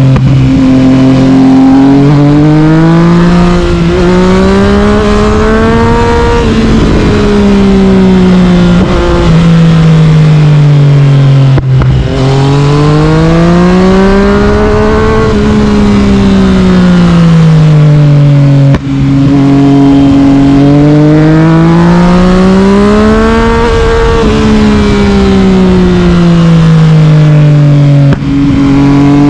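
Yamaha MT-09 (FZ-09) inline-three engine through an Akrapovic carbon exhaust, pulling hard then easing off, over and over, on a twisty mountain road: its note climbs and falls about four times. Three brief sharp breaks in the sound come at gear changes or snapped throttle.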